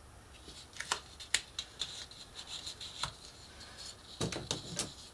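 Hands handling and pressing a curved strip of lightweight chipboard and cardstock, making scattered light rustles, taps and clicks, with a small cluster of them near the end.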